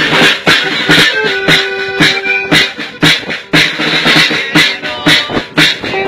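Music with a steady beat, about two hits a second, and a few held instrument notes.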